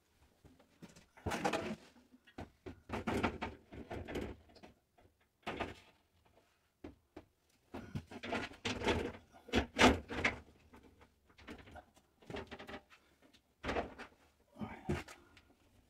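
Sliding glass door of a corner shower kit being fitted into its frame: irregular knocks, clatters and scrapes as the panel and its rollers are worked into the track, the loudest knock about ten seconds in.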